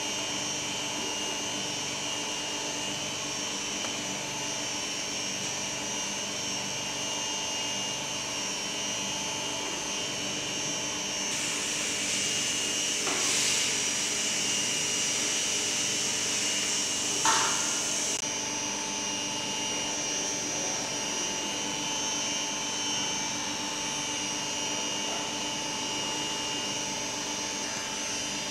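An electric motor runs steadily with a constant hum. For several seconds in the middle a louder hiss joins it, with a brief sharp knock near the end of that stretch.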